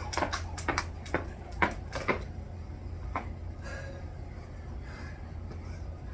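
Jump rope slapping the floor as she skips: a quick, uneven run of sharp slaps for about two seconds, then a single one about a second later. Heavy breathing follows.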